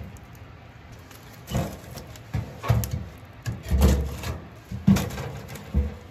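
Logs being loaded into a small metal wood stove's firebox: a run of about six wooden knocks and scrapes against the coals and steel, starting about one and a half seconds in, the heaviest one around the middle.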